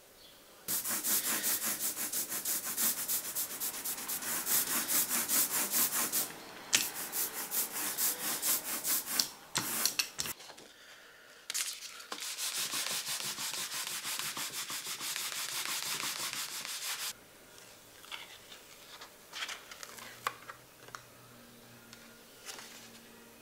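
A small bamboo baren rubbed in fast, even strokes over the back of paper laid on an inked rubber printing block, pressing the print. It comes in long runs with a pause about halfway, and ends about three-quarters of the way through.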